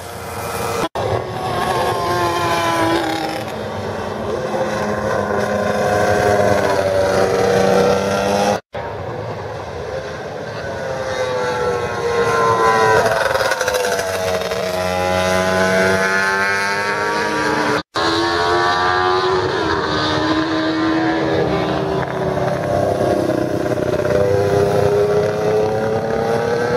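Classic road-racing motorcycles passing at speed, their engine pitch rising and falling as each one goes by. The sound cuts abruptly three times, about a second in, about nine seconds in and about eighteen seconds in, between passes.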